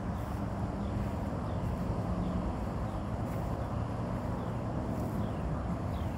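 Muscovy ducklings peeping faintly, a short falling peep about every two-thirds of a second, over a steady low rumble.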